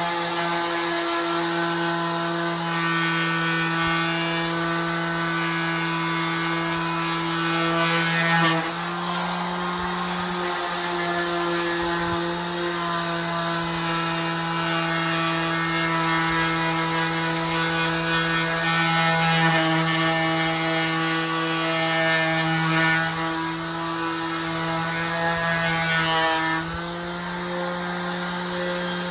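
Electric sander with a dust-collection container running steadily on the wood of an old bench, a constant motor hum whose pitch steps slightly twice, about a third of the way in and near the end.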